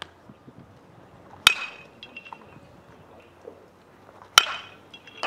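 Metal baseball bat hitting pitched balls: a sharp, ringing ping about a second and a half in, another about three seconds later, and a third right at the end.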